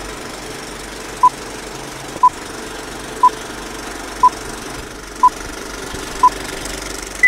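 Film-projector clatter under a film-leader countdown: a short beep every second, six at the same pitch, then one higher beep at the end.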